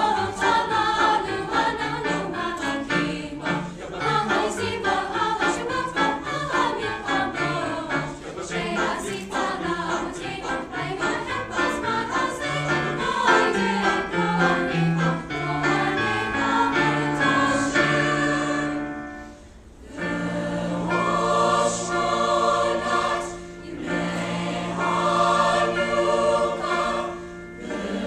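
Mixed high school choir singing in parts with piano accompaniment. About two-thirds of the way through, the singing drops away briefly, then the choir sings long held chords with short breaths between them.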